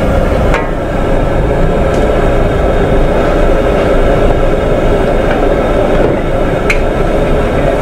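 Noodles frying in a steel wok over a gas burner: a loud, steady rush of burner flame and sizzling, with the metal spatula clinking and scraping against the wok a few times.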